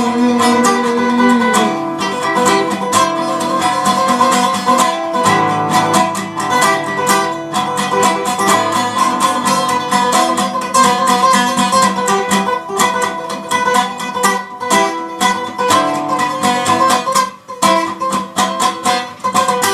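Guitar music: a steady stream of quickly picked notes ringing over one another.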